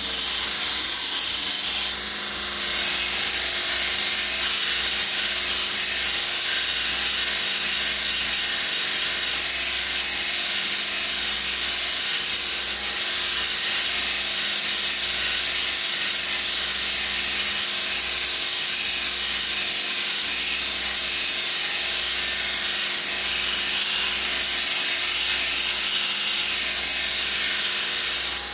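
Grizzly 2x42 belt grinder running a coarse 36-grit belt against a high-carbon steel bar: a steady loud hiss of abrasive grinding steel over the motor's hum. The hiss dips briefly about two seconds in as the work comes off the belt.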